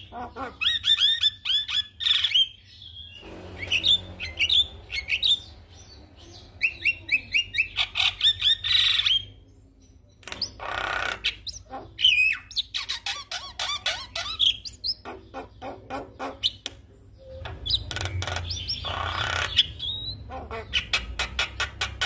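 A Javan myna singing a long, varied song of rapid repeated chirps, sliding whistles and harsh squawks, broken by a few short pauses.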